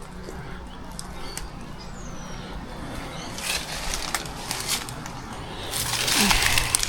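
Footsteps crunching and rustling through dry leaves and garden plants, in scattered crackles that grow louder and denser near the end. A bird chirps faintly once.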